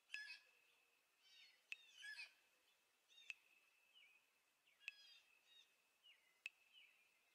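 Faint bird calls: sharp chip notes about every second and a half, mixed with short twittering chirps.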